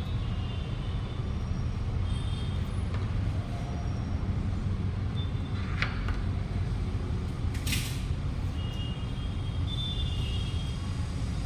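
Steady low background rumble with faint short high chirps scattered through it, and two brief hisses about six and eight seconds in.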